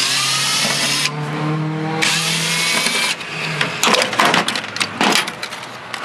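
Ryobi cordless drill/driver running in two bursts of about a second each, backing screws out of a microwave oven's sheet-metal housing. It is followed near the end by a quick run of clicks and knocks as loosened metal parts are pulled and handled.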